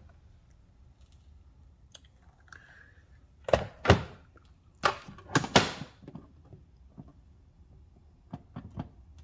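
Loud knocks and clicks from handling the irrigation controller box and its wiring: two hard knocks about three and a half seconds in, a quick group of three more about a second later, then a few lighter clicks near the end.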